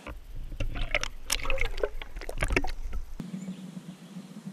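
Water splashing and sloshing, a quick run of sharp splashes over a low rumble for about three seconds that stops suddenly.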